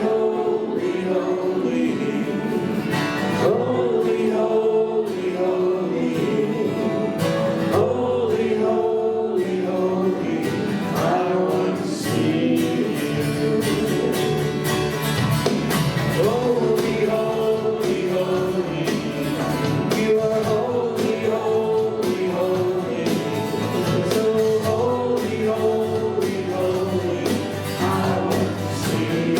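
Worship music: a group of voices singing a praise song with a band led by acoustic guitar.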